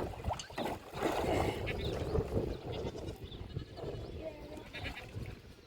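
Sheep bleating at intervals, with a louder stretch of hissing noise about a second in.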